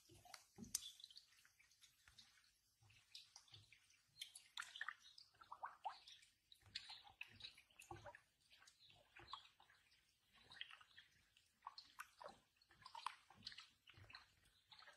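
Faint, irregular small splashes, drips and slurps of water at the surface of a garden koi pond, where koi are rising at the edge.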